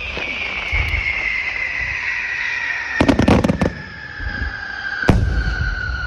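Aerial fireworks going off: a long whistle slowly falling in pitch runs under a quick cluster of sharp bangs about three seconds in and a single sharp bang about five seconds in.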